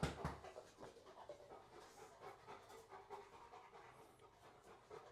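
A dog panting faintly, with a couple of soft knocks right at the start.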